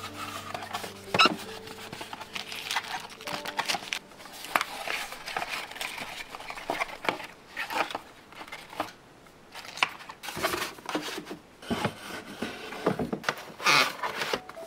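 Cardboard boxes handled on a cabinet shelf: irregular knocks, scrapes and paper rustling as boxes are slid into place and a box lid is opened and closed.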